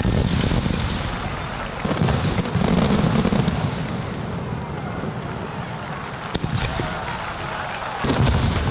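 Aerial fireworks going off: deep booms at the start, again from about two to three and a half seconds in, and near the end, with a few sharp cracks in between.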